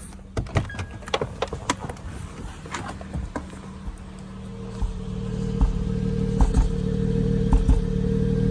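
Acura TL engine running with a cylinder 4 misfire, a steady hum with recurring low thumps. It grows louder about halfway through, after a few scattered clicks and knocks.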